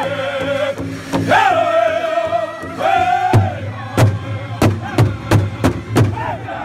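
Powwow drum group singing a high-pitched song together around a big drum. The singing stops about three and a half seconds in, and a run of hard, evenly spaced drumstick strikes on the drum follows, about three a second.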